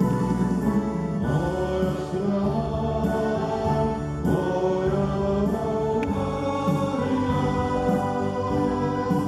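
A man singing into a handheld microphone over amplified backing music, with many voices singing together like a choir.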